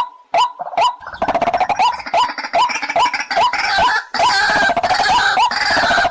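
White-breasted waterhen calling: a fast run of short, repeated upward-hooked notes, about two to three a second. From about a second in, a dense, harsh chorus of overlapping croaking calls joins them.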